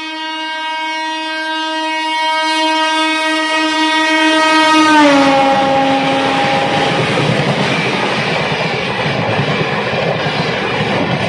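WAP-7 electric locomotive horn sounding one long blast as the Jan Shatabdi Express comes through; about five seconds in its pitch drops as the locomotive passes close by, and the horn fades into the steady noise of the coaches going past on the adjacent track.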